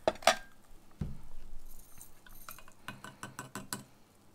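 A spoon stirring and clinking against a cup, with two sharp knocks at the start, a dull thump about a second in, and a quick run of light clinks near the end.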